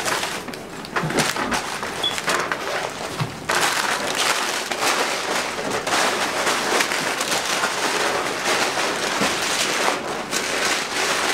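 Crinkling of crumpled paper bags and rustling of a nylon backpack as they are handled and stuffed, a dense crackly noise that gets louder about three and a half seconds in.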